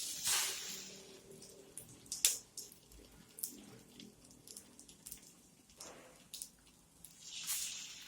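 Egg-dipped sandwich frying in oil in a pan on a low flame, sizzling with scattered crackles and louder hissing swells at the start and near the end.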